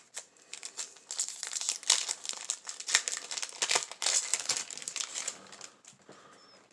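Foil wrapper of a Yu-Gi-Oh Legendary Duelists booster pack crinkling as it is handled and opened, a dense run of crackles that thins out near the end.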